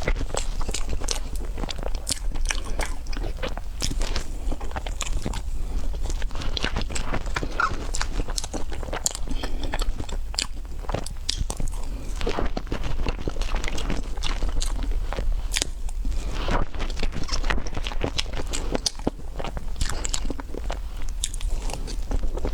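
Mouth sounds of someone eating a chocolate dessert, biting and chewing, with many small sharp clicks and crackles close together.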